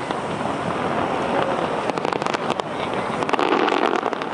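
Aerial fireworks display bursting: a rapid run of bangs and crackles, heaviest about two seconds in and again a little after three seconds, over a steady noisy background.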